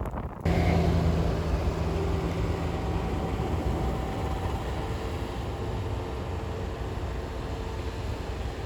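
A large motor vehicle running: a steady low engine hum under a rushing noise. It starts abruptly about half a second in and eases off slowly.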